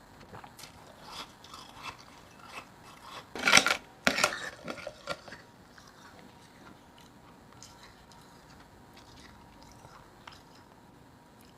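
Powdery ice chunks being bitten and chewed close to the microphone: faint crunches, then a loud crunchy bite about three and a half seconds in and another just after, with chewing crunches that die away after about five seconds.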